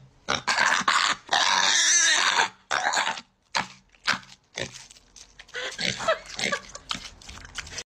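Piglet eating watermelon: irregular wet chomping and smacking, with a louder rasping stretch of about a second about one and a half seconds in.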